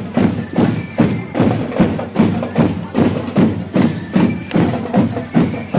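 Drum and lyre band playing: marching drums keep a steady beat of about two and a half strikes a second, with short high bell-lyre notes ringing over it.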